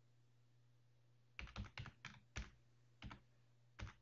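Computer keyboard being typed on, faintly: about seven separate keystrokes at an uneven pace, starting about a second and a half in after near silence.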